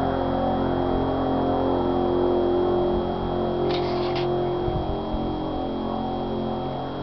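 A race truck's engine holding a high, steady speed, its drone slowly fading.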